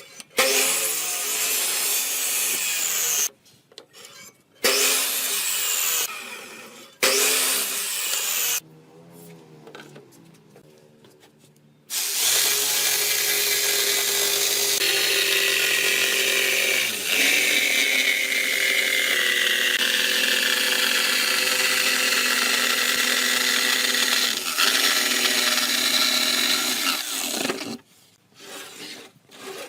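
Electric power tool working wood. It runs in three short bursts of a couple of seconds each, then in one long run of about sixteen seconds with a steady motor pitch that dips briefly partway through.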